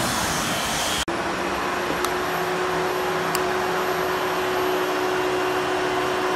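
Steady rushing machine noise with a steady hum, broken once about a second in.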